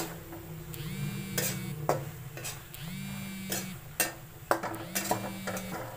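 A spatula knocking and scraping against the pan as roasting green chickpeas are stirred, in scattered clicks. A low hum swells and fades three times, about every two seconds.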